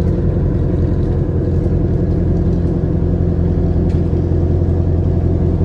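Boat engine running steadily at cruising speed, a low even drone.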